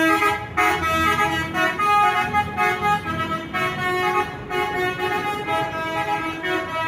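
Bus-mounted telolet basuri multi-tone horn playing a tune of short notes that change pitch in quick succession, loud and continuous.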